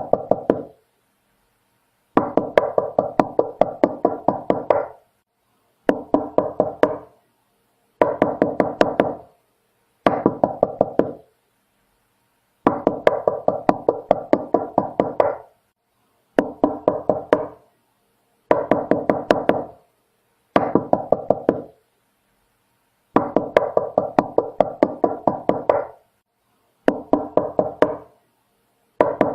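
Knocking on a door, in repeated runs of quick raps at about four or five a second. Each run lasts one to three seconds and is followed by a gap of silence about a second long.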